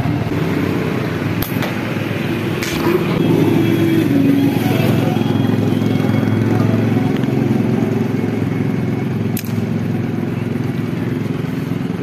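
Motorcycle engine running steadily while riding, with a few sharp clicks.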